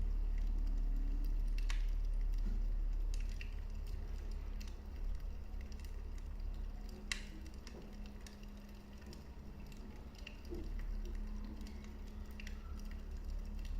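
Wood fire burning in a fireplace: scattered sharp crackles and pops over a low steady rumble, the loudest crack about seven seconds in.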